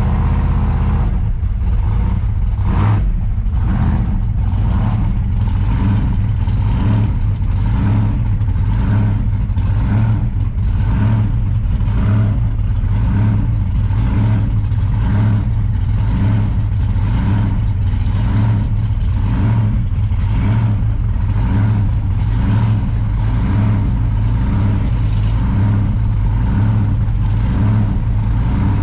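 Supercharged V8 of a blown 1957 Chevrolet gasser running steadily while the car is driven. The loud engine sound pulses evenly about one and a half times a second.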